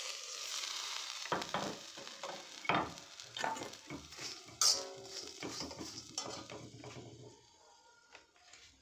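A metal ladle stirring freshly popped popcorn in an iron kadhai, scraping and clinking against the pan, with one loud ringing clank near the middle. A short hiss from the hot pan comes first, as the lid comes off.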